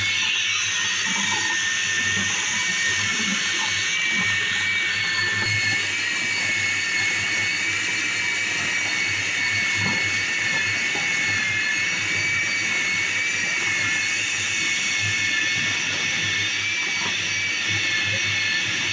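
Electric food chopper motor running steadily with a high whine as it chops minced meat with onion, garlic and green chili.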